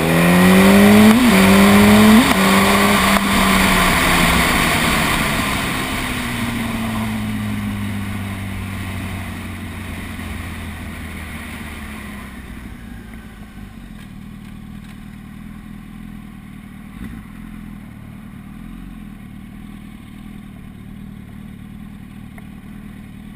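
2007 Yamaha R1's inline-four engine through a Leo Vince aftermarket exhaust, revving up hard with two quick upshifts in the first couple of seconds. The revs then fall steadily as the bike rolls off, and from about halfway the engine settles to a much quieter, steady low note.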